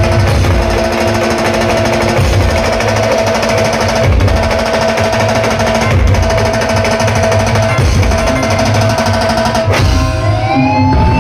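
Loud band music played over a powerful sound system, driven by heavy drumming and rolls, with a held melody note repeating in phrases about every two seconds. The music breaks off near the end and a rising, siren-like tone begins.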